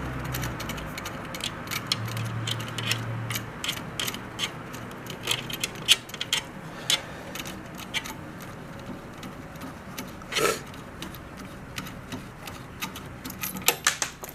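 Irregular light clicks and ticks of small metal and plastic parts being handled as a 3D printer's auto bed leveling sensor and its cable are unplugged and taken off the print head.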